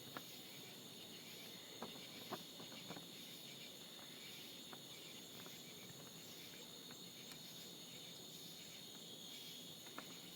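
Steady, faint chorus of crickets chirring, with a few faint short clicks now and then.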